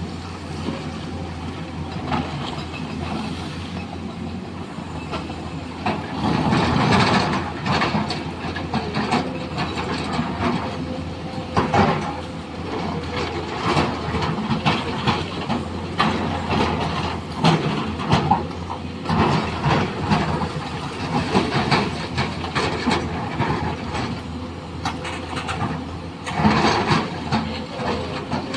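Excavator running steadily under work, with irregular metallic clanks and rattles coming and going over its low engine hum.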